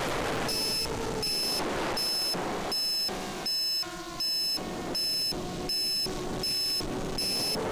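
High electronic beeping, one short beep about every three quarters of a second starting about half a second in, over the wavering whine of a small FPV quadcopter's brushless motors and propellers.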